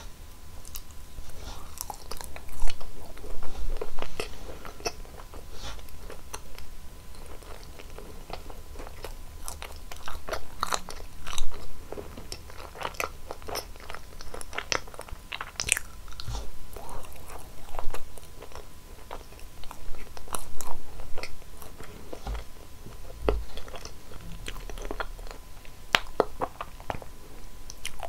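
Close-miked eating sounds of a fudgy chocolate brownie: bites and moist, chewy chewing, coming as irregular clusters of small clicks and smacks.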